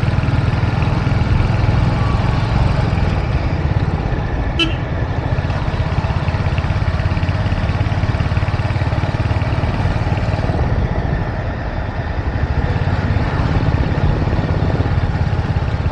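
Motorcycle engine running steadily while the bike is ridden, with a short high beep about four and a half seconds in.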